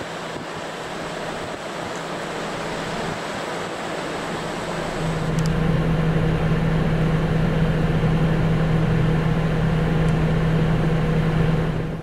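Strong blizzard wind, a steady rushing noise. About five seconds in it cuts to a louder, steady low hum of a car driving on a snow-covered road, heard from inside the car.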